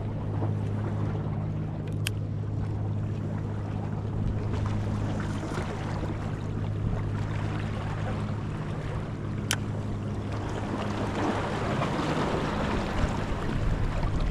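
Steady low engine hum under wind and water noise, with two sharp clicks, one about two seconds in and one past halfway.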